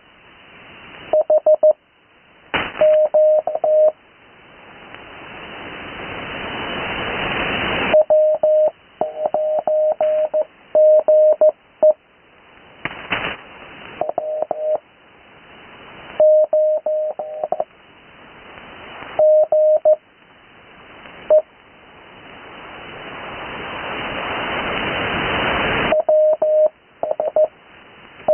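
Morse code (CW) received on an 80 m amateur radio receiver: a single steady tone of about 600 Hz keyed in dots and dashes. This is slow practice sending, with long gaps between characters. In the longer pauses the receiver's band hiss swells up and is cut off each time the tone returns.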